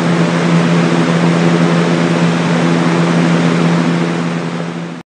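A sound-machine track playing: a steady low hum over an even rushing noise, like a fan or motor sound, cutting off abruptly at the end.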